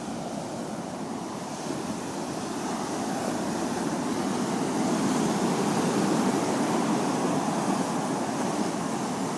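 Sea surf washing onto the beach: a steady rushing noise that swells louder around the middle.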